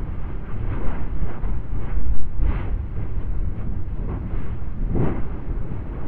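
Lava fountain in an erupting volcanic crater: a thunderous, continuous deep rumble broken by irregular splashing bursts of molten lava. The loudest bursts come about two and a half seconds in and again near five seconds.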